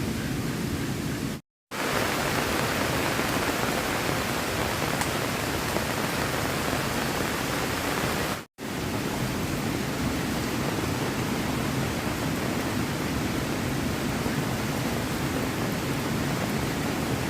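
Heavy rain falling, a steady hiss of water. It drops out completely for a moment twice, about a second and a half in and again about halfway through.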